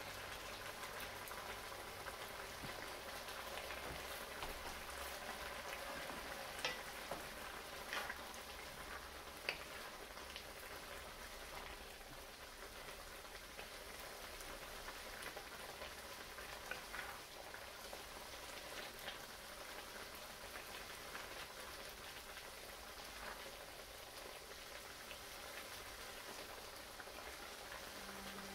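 Pancit noodles in sauce sizzling steadily in a frying pan as they are stirred with a wooden spoon, with a few light knocks.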